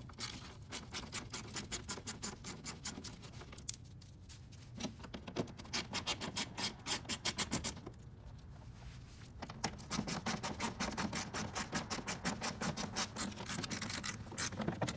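Hand ratchet with a 10 mm socket clicking rapidly in runs with short pauses as it backs out the bolts along the underside of a car's front bumper.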